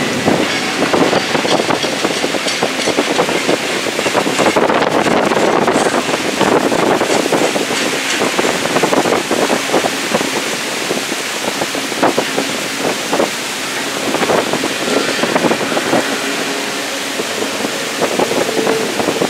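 Train rolling past in heavy rain: a steady rushing noise scattered with many sharp clicks and knocks.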